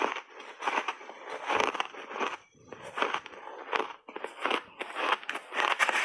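Mouthfuls of crunchy shaved ice dusted with matcha powder being bitten and chewed, an irregular run of crunches with short pauses between them.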